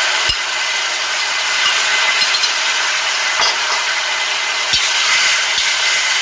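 Vegetables sizzling in hot oil in a stainless steel wok, a steady hiss, with a few knocks of a metal ladle against the wok as they are stirred.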